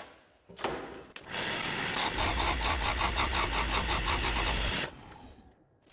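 Skew chisel cutting a spinning mahogany blank on a wood lathe, a loud hiss with a fast, even pulse from the turning work and the lathe motor humming beneath. It runs for about three and a half seconds, taking the diameter from 24 mm down to 22 mm, and stops near the end.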